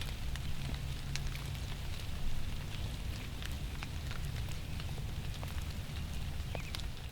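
Steady outdoor hiss with a low rumble and many scattered light ticks, like drops or small crackles.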